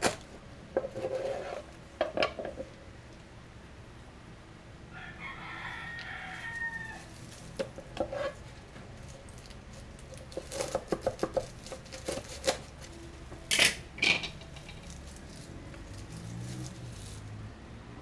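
Knife chopping lemongrass on a cutting board: irregular sharp knocks, coming in a quick cluster about ten seconds in, with the loudest strikes near fourteen seconds. A rooster crows once in the background about five seconds in, lasting about two seconds.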